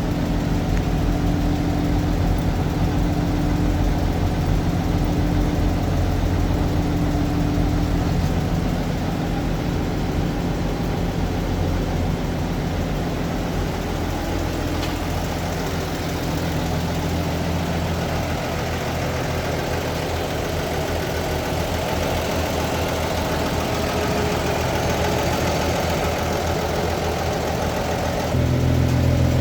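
Toyota FJ40 Land Cruiser's inline-six petrol engine idling steadily. Its tone shifts about nine seconds in, and it gets louder near the end.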